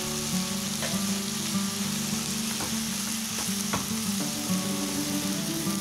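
Shredded cabbage sizzling in hot oil as it is stir-fried in a frying pan, with a wooden spatula scraping and knocking against the pan a few times. Soft background music with held notes plays underneath.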